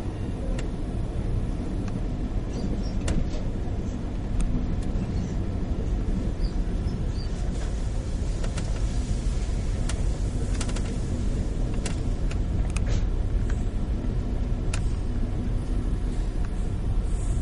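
Ride noise inside an Amtrak California Zephyr Superliner passenger car under way: a steady low rumble of the wheels on the track, with scattered sharp clicks and rattles.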